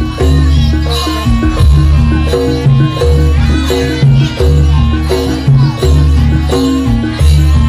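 Live jaranan (kuda lumping) dance music: drums with a deep, repeating bass beat under a short repeating tuned melody.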